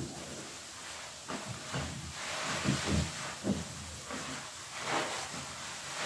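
Soap-soaked sponge squeezed and kneaded by hand in thick dish-soap foam: wet squelches in a string of soft, irregular pulses over the fizzing hiss of the suds.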